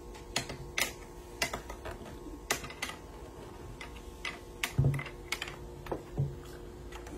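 Scattered sharp clicks and pops, about two a second, from bubbles bursting at the oil surface of a fish-bowl lava lamp fizzing with Alka-Seltzer. Two dull thumps come a little past halfway as the glass bowl is shifted on the table, the first the loudest.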